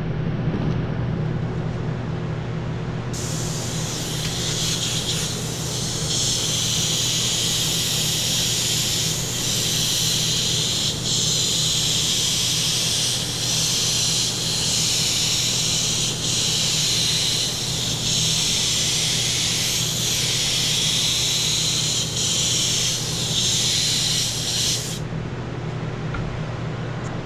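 Gravity-feed airbrush spraying solvent-based paint: a high hiss of air and paint that starts about three seconds in and stops about two seconds before the end, with several brief breaks as the trigger is eased off between passes. A steady low hum runs underneath.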